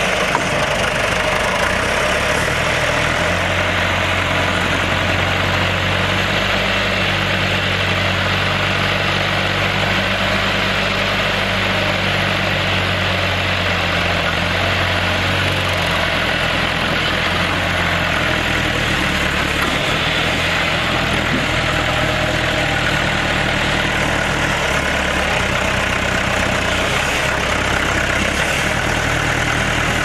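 A 1979 John Deere 410 backhoe's 219DT four-cylinder diesel engine running steadily, its low note shifting a few times.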